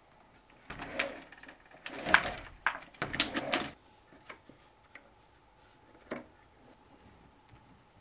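Bamboo roll-up blind being raised by its cord: the slats rattle and rustle in three pulls over about three seconds. A single knock follows a couple of seconds later.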